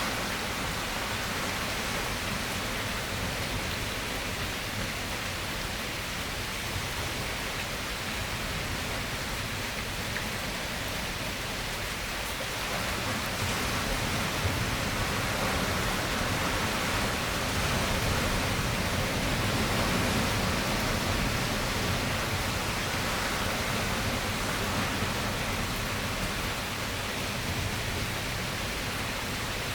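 Steady rain falling, an even hiss that swells louder about twelve seconds in and eases slightly near the end.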